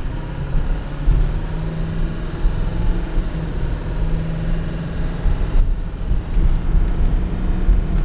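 Ford 6.4 L Power Stroke twin-turbo diesel V8 of a 2008 F-250 pulling the truck up to speed, heard from inside the cab, getting louder about a second in, as the transmission shifts up through the gears cleanly without delay.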